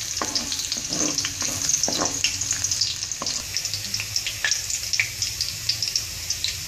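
Minced garlic sizzling and crackling in hot oil in a wok, stirred with a spatula at first.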